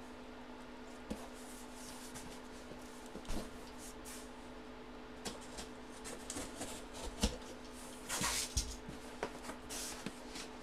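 Cardboard box flaps and paper inserts being handled and pulled out: scattered taps and clicks with rubbing and rustling of paper and cardboard, loudest about eight seconds in. A steady low hum runs underneath.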